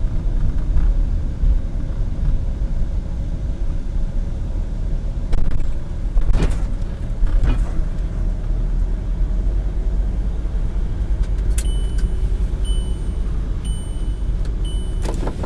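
Car cabin noise while driving: a steady low rumble of engine and road, with a few knocks in the middle. A few seconds before the end a high electronic beep starts repeating about once a second.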